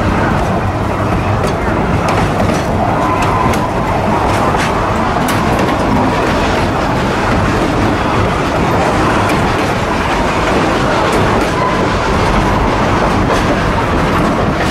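Narrow-gauge train wheels running over the rails: a steady rumble with clicking over rail joints, and brief faint wheel squeals twice on the curve.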